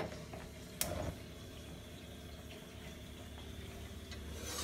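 Gas range burner being turned on and lit: a sharp click about a second in and a few faint ticks later, over a low steady hiss.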